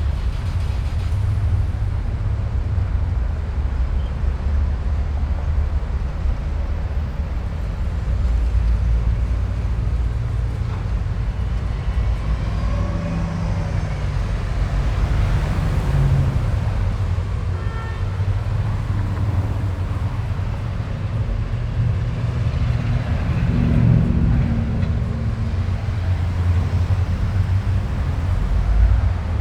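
Steady low rumble of motor vehicles, like road traffic, with a few brief higher tones in the middle.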